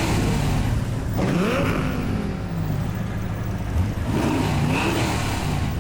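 Toyota Supra sports car engine revving hard as it accelerates away. The pitch climbs, drops back at each gear change and climbs again, several times.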